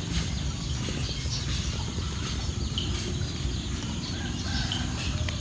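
Uneven low rumble of wind on the microphone, with faint short bird chirps now and then.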